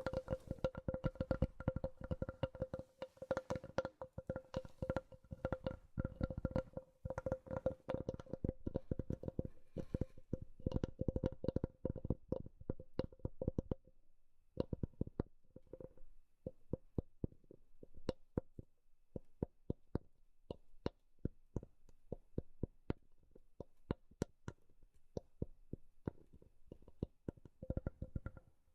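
Tapping on a wooden object that rings with a clear pitch, like a wood block. The taps come thick and fast at first, then about halfway through thin out into slower, separate taps.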